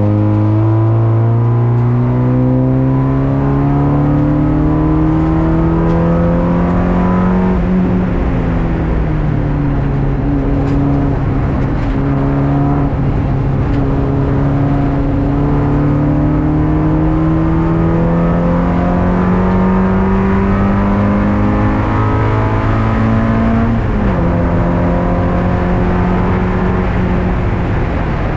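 A race car's engine heard from inside the stripped, caged cabin, pulling steadily under load on track. Its pitch climbs slowly, dips about seven seconds in, climbs again for a long stretch, and dips again near the end.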